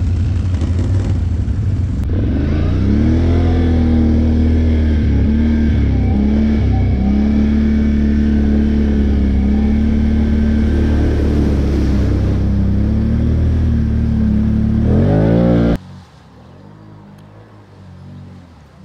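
ATV engine running on the trail, its pitch rising and falling with the throttle. It revs up sharply near the end and then cuts off abruptly, leaving a much fainter, distant engine.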